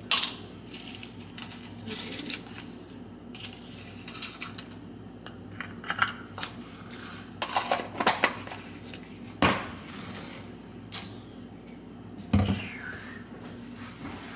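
Kitchen handling clatter: scattered clinks, taps and knocks of containers and utensils being moved about, the louder knocks in the second half. A low steady hum runs underneath.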